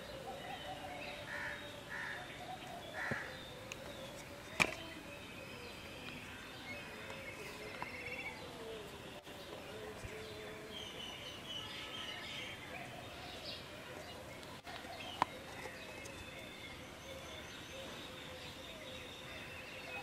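A mixed chorus of birds calling outdoors, with many short repeated chirps and trills. Two sharp clicks stand out, about a third of the way in and again about three quarters of the way in.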